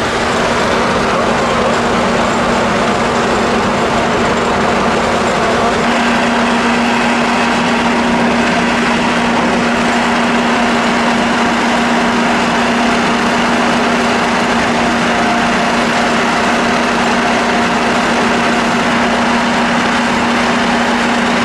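Engine running steadily at a constant speed, a continuous drone with an even hum and no changes in pitch.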